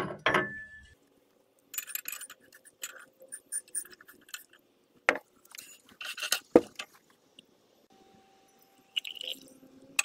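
A small glass beaker set down on a hot plate with a sharp clink that rings briefly. Scattered clinks, taps and rattles of glassware being handled follow, with two sharper knocks about five and six and a half seconds in.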